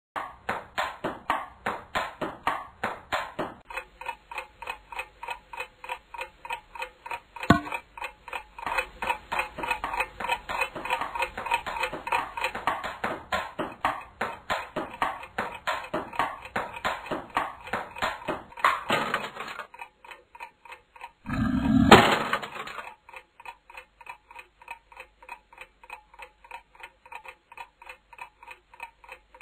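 Fast, even ticking at about four ticks a second, louder for the first twenty seconds and fainter after that. A single sharp click comes about seven seconds in, and a louder, lower swell rises to a sharp hit near twenty-two seconds.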